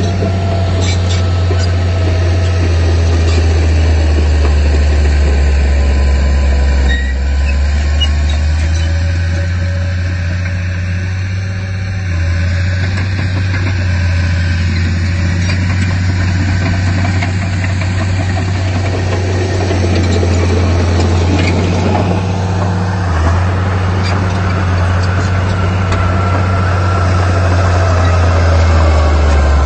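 Diesel engine of heavy earthmoving machinery running steadily, a loud low drone, with a few faint knocks.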